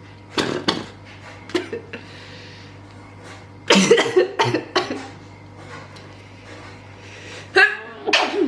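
A person coughing and sneezing in several sudden bursts, with a cluster of them about halfway through and two more near the end. It is the reflex set off by a nasal swab pushed up the nose.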